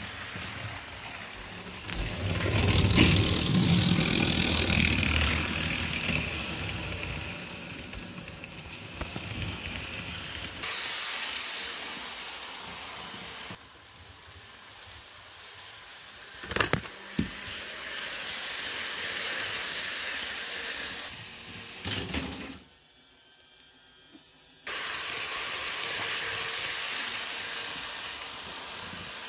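Electric model passenger train running along its track: a steady rattling rumble that swells and fades as it moves past, with a few sharp clicks and a brief near-silent gap about three-quarters of the way through.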